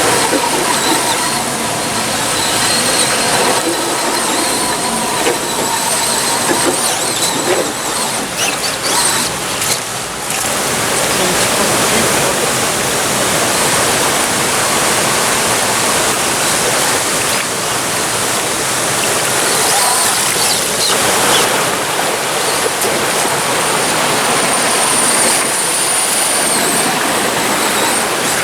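Rushing stream water with the whine of an Axial SCX10 RC crawler's brushed silver-can electric motor and metal transmission gears as it drives through the water.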